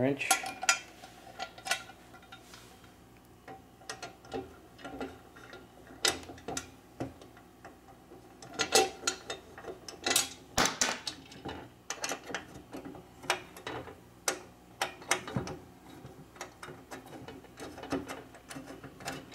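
Screws being driven by hand with an Allen wrench into a metal frame: many light, irregular clicks and taps of the hex key against the screw heads and metal, coming in clusters, with a heavier knock of the part being set in place at the very start.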